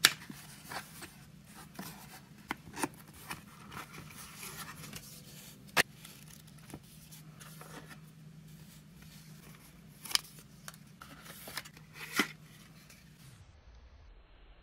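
Smartphone packaging being handled: a paper document sleeve and a plastic phone case lifted out of a cardboard box insert, with rustling and several sharp taps and clicks. A low hum underneath stops near the end.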